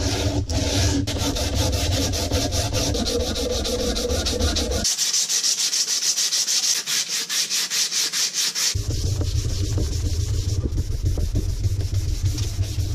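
Sandpaper rubbed by hand along a wooden spear shaft: a steady run of rasping strokes, several a second.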